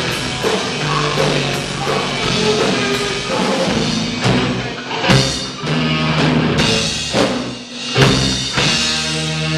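Live rock band playing electric guitar, bass guitar and drum kit, with a few loud hits together in the second half, then a ringing guitar chord held near the end.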